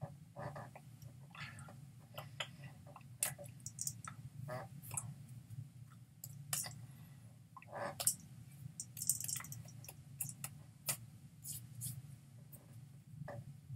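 Scattered soft clicks and taps from hands meeting each other and the body during sign language, irregular, over a steady low hum.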